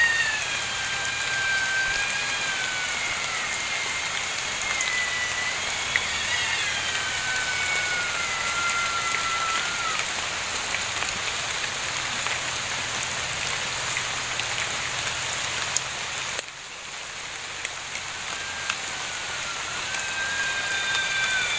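Steady rain, with long drawn-out cat-like wailing cries from an unseen animal, several overlapping and sliding slowly down in pitch through the first ten seconds, then one more near the end.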